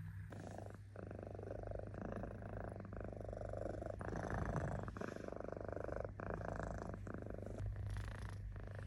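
Domestic cat purring close up: a steady rumble that pulses with each breath, about once a second.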